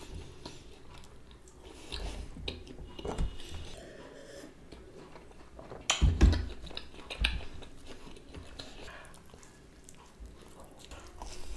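Close-miked biting and chewing of a cheese pizza slice, with soft crackly mouth sounds and a sharp knock about six seconds in.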